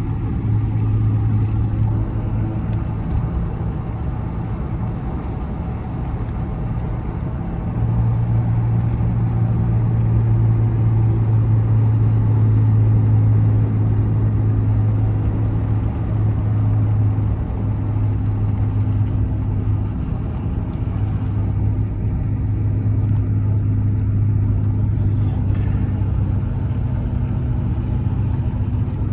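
Steady low drone of a car's engine and tyres heard from inside the cabin while driving, growing a little louder about eight seconds in.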